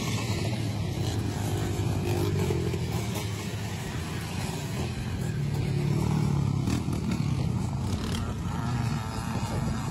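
Several vintage 500cc-class motocross bikes racing past, their engines revving as they ride by. The sound grows to its loudest about six seconds in.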